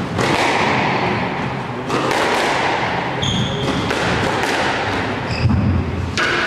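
Squash ball being struck by rackets and knocking off the court walls during play, several separate knocks spread through. A couple of short high squeaks of shoes on the court floor come in between.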